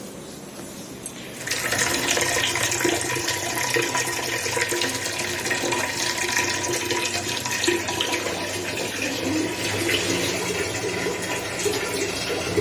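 Water running steadily from a tap, turned on about a second and a half in.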